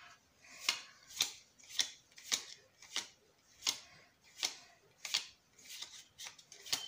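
Magic: The Gathering cards from a booster pack being slid off the stack one at a time, each making a short papery snap, about ten at an even, unhurried pace.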